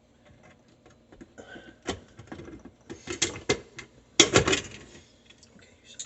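Hands working the wiring of a garbage disposal: a run of small clicks, scrapes and knocks of wire and metal parts being handled, loudest about four seconds in.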